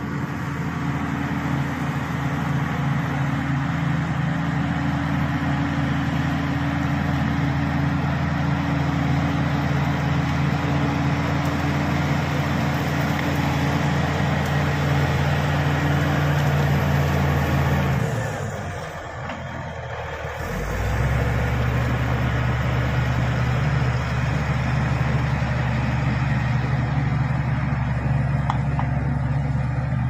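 Shantui SD16 crawler bulldozer's diesel engine running steadily under load while it pushes earth. About two-thirds of the way through the engine sound drops away for a couple of seconds, then comes back at a lower pitch as the machine backs up.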